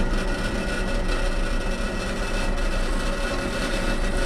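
Metal-cutting bandsaw running steadily while it cuts the lip off an ATV rear brake rotor hub, a level machine hum with a few steady whining tones.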